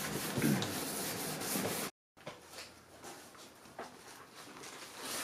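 A cloth rubbed by hand over a car's painted bumper in quick back-and-forth strokes. It cuts off sharply about two seconds in, and fainter wiping strokes follow.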